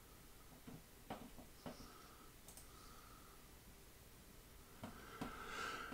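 A few faint computer mouse clicks, about five, spaced irregularly over near silence: two or three in the first two seconds and two more near the end.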